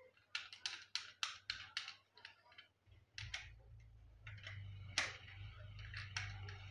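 Plastic clicks and handling of a small microphone being fitted into its plastic mount: a quick run of about eight clicks in the first two seconds, then rubbing with a low hum from about three seconds in and one sharp click about five seconds in.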